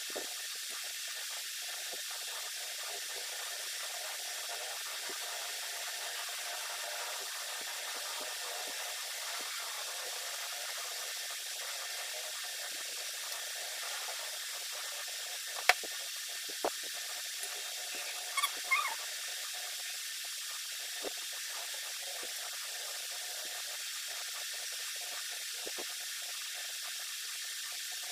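Steady faint hiss with a few scattered clicks: one sharp click about sixteen seconds in and a short cluster of clicks a couple of seconds later.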